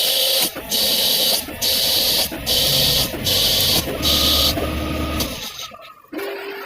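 CNC lathe cutting, a harsh high hiss coming in even bursts with short breaks, about four every three seconds. The bursts stop about four and a half seconds in, and a steady machine hum takes over near the end.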